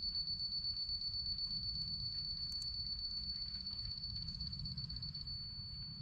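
Laser level receiver on a grade rod beeping rapidly in a high, steady pitch, signalling where the rotating laser's beam strikes it; the beeping turns quieter near the end. A low rumble lies underneath.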